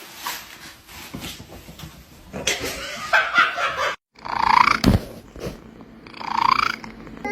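A cat meowing: two drawn-out meows about a second and a half apart, after a stretch of rough noise that cuts off abruptly about four seconds in.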